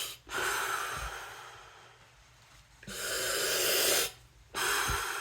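Breathing through a freshly rebuilt Scubapro Air 2 alternate-air regulator: three hissing breaths about a second long, each with a short gap between them. The air flows only on demand, with no free flow, which is the sign of a correctly set, working rebuild.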